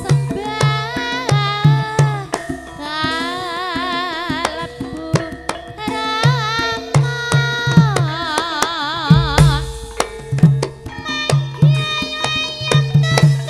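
Javanese gamelan (karawitan) music for tayub: a kendang drum beating a quick pattern of deep strokes and sharp slaps under steady metallophone tones, with a high singing voice wavering in heavy vibrato.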